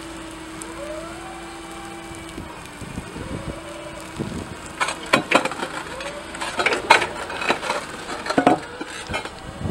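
Yale forklift's engine running with a steady hum and a few rises and falls in pitch, then from about five seconds in a run of sharp crunching and crackling clicks as its tyres roll onto 30 mm porcelain stoneware slabs lying on concrete.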